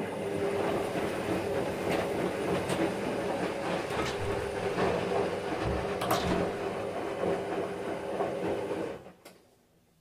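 Washing machine running: a steady mechanical hum with occasional clicks and knocks. It stops abruptly about nine seconds in.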